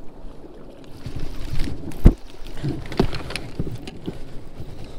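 Water lapping and slapping against a kayak hull in a breeze, with several sharp knocks and clicks from fishing gear being handled; the loudest knock comes about two seconds in.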